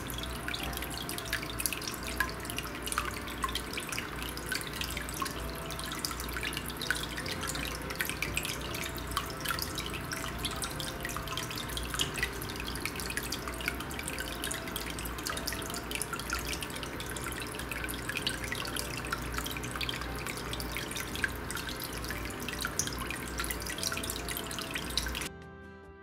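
Small pump-fed waterfall trickling and splashing over stacked stones into the water below, with many small drips, over soft background music. The water sound cuts off near the end.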